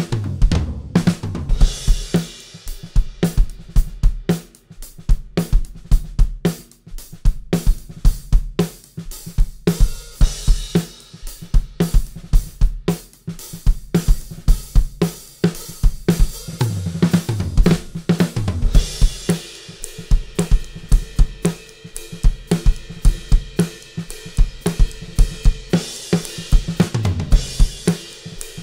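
Acoustic drum kit played in a steady groove: kick drum, snare, hi-hat and crash and ride cymbals. Tom fills run down from the high toms to the floor tom right at the start, about 17 seconds in and again near the end.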